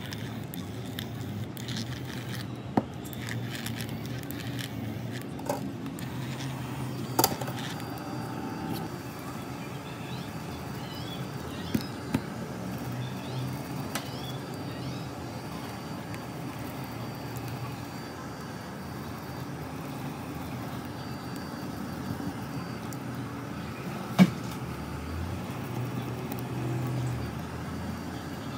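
Small hand tool working on an iPhone 11's opened aluminium rear housing, giving a few sharp clicks and taps, the loudest about 7 and 24 seconds in, over a steady low background hum.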